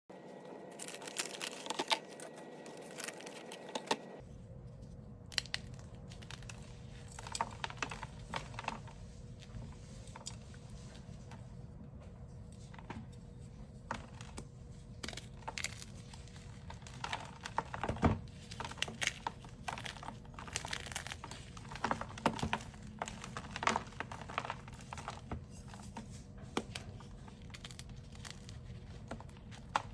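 Concrete mix being worked, with irregular crackling and crunching throughout. The background changes abruptly about four seconds in.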